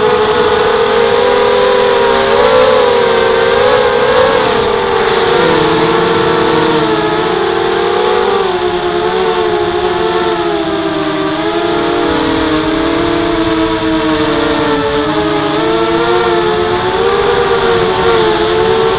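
Four brushless motors (RCTimer 2300 kV) spinning 5x3 carbon props on a 250-size H4 FPV quadcopter, heard from its onboard camera: a loud, continuous hum of several close tones whose pitch wavers up and down with the throttle.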